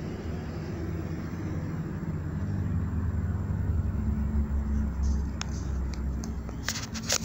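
Homemade can stove burning with a steady low rumble, with a few sharp clicks near the end.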